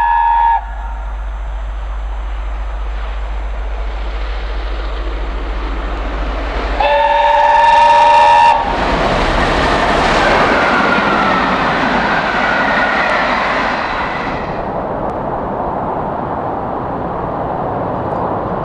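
Steam locomotive and coaches approaching at speed, sounding a multi-tone steam whistle for about a second and a half, then passing close by with a loud rush of exhaust and wheel noise. Near the end the sound drops to a fainter, more distant train running.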